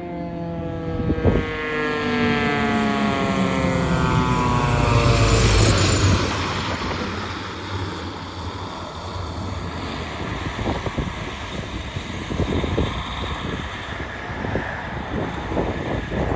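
Fire engine passing close with its siren sliding steadily down in pitch, the tone dying away about six seconds in as the truck's engine rumble peaks. After that, engine, tyre and wind noise carry on as the truck pulls away.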